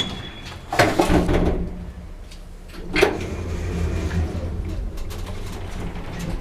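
Lift doors clanking about a second in and again, sharply, about three seconds in, followed by the low steady hum of the lift running.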